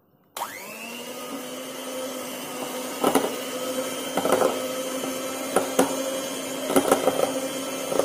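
Electric hand beater switching on about half a second in, its motor spinning up quickly to a steady whine as it whips cold cream in a glass bowl. Sharp knocks come every second or so as the beaters strike the side of the glass.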